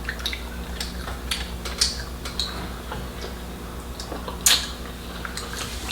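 Scattered light clicks and clinks of dishes and utensils at a meal, with one louder clink about four and a half seconds in.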